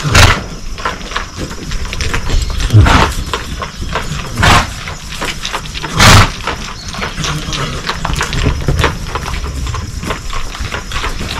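Young horse working around the trainer on a line, with four loud, short bursts of noise in the first six seconds over a steady low rumble.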